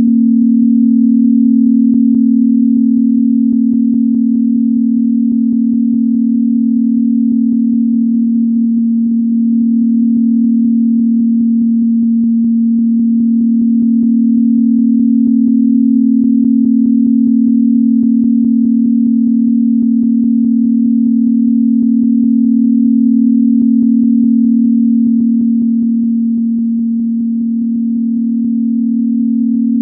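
A steady synthesized sine tone, a low pure hum at about 240 Hz, held without a break and swelling gently in loudness now and then.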